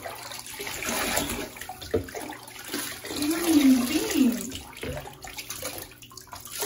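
Bath water sloshing and splashing in a tub as a puppy is bathed and water is poured over it from a cup. About three seconds in comes a short, wavering voice-like sound.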